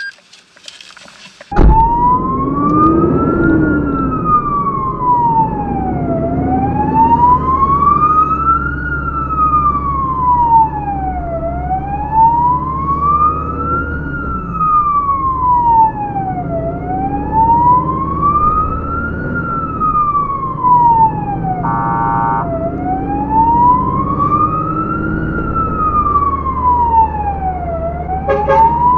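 Fire engine's siren comes on about a second and a half in and wails slowly up and down, a full rise and fall about every five seconds. Beneath it runs the truck's engine, heard from inside the cab. Partway through there is one brief steady blast.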